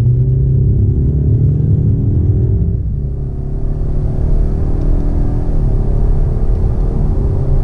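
The 2019 Ford Mustang EcoBoost's turbocharged 2.3-litre four-cylinder accelerates hard onto the interstate, heard from inside the cabin. Its pitch climbs, drops with an upshift of the 10-speed automatic about three seconds in and again about two-thirds through, then climbs again each time. Road rumble runs steadily underneath.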